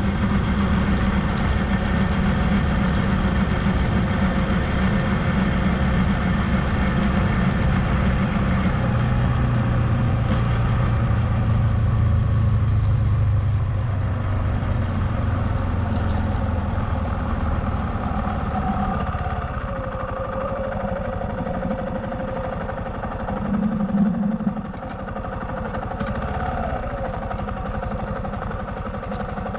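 Suzuki GrassTracker BigBoy's 250 cc single-cylinder engine running steadily. Its sound eases a little about two-thirds of the way in, with a brief swell a few seconds later.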